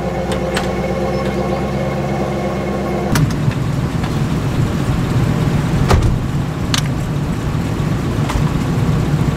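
A vehicle engine running steadily; about three seconds in it changes to a rougher, louder rumble, with a few sharp clicks, and it cuts off suddenly at the end.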